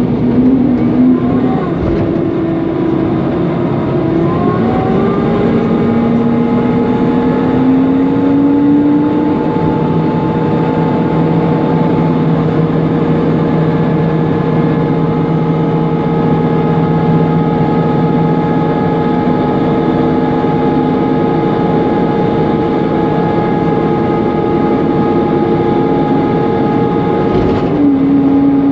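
Mercedes-Benz Conecto NGT city bus under way, heard from inside: its OM 936 G natural-gas engine and drivetrain run with steady whining tones over the noisy cooling fan. The whines rise in pitch twice early on as the bus picks up speed, then hold steady; near the end a short knock comes as the pitch shifts.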